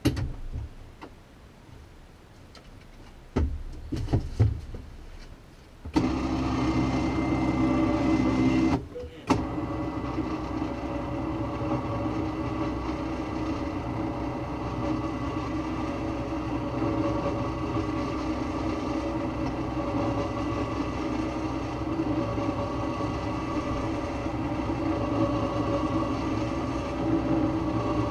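A motor on an off-road vehicle starts suddenly about six seconds in and then runs steadily with a constant whine. It drops out for a moment around nine seconds and resumes. A few knocks and thumps come a couple of seconds before it starts.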